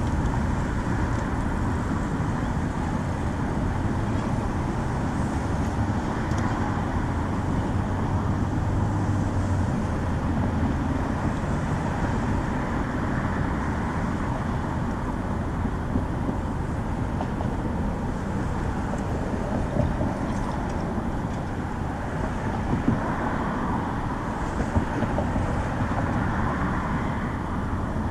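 City street ambience: a steady rumble of road traffic, with a low engine drone that fades after about ten seconds. There are a few sharp clicks in the second half.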